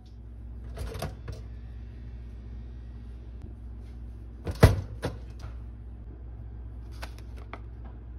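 Two-slice pop-up toaster popping up with a sharp metallic clack about four and a half seconds in. A few lighter clicks and knocks come before and after it, over a low steady hum.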